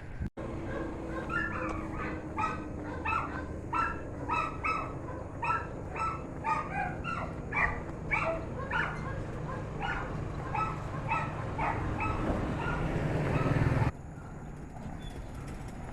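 A dog barking over and over in quick short barks, about two to three a second, for around ten seconds. Near the end a rising rumbling noise swells and then cuts off suddenly.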